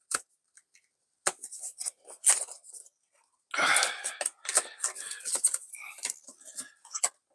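Cardboard and paper packaging being handled: a few sharp crackles in the first couple of seconds, then continuous rustling and crinkling from about halfway through as a folded white cardboard box insert is worked open.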